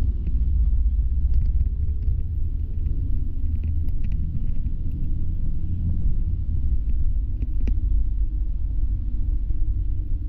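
Steady low rumble of a moving city bus, its engine and road noise, with a faint steady whine above it.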